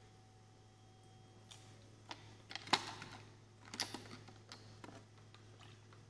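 Scattered light clicks and taps of a plastic spatula against a glass beaker as a drop of blue dye is stirred into alcohol gel, a quick cluster about two and a half seconds in and another near four seconds.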